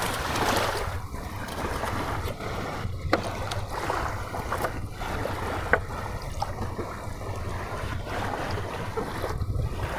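Steady outdoor wind noise with a low rumble on the microphone, and a couple of faint clicks a few seconds in.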